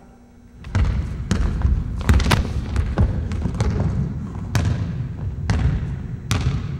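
A basketball bouncing on a hardwood gym floor during play, an uneven series of sharp bounces over heavy low thudding, starting about a second in.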